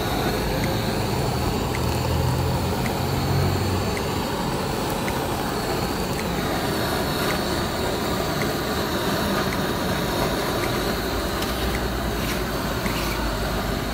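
Handheld butane torch burning with a steady, even hiss of flame as it browns cheese on the donuts.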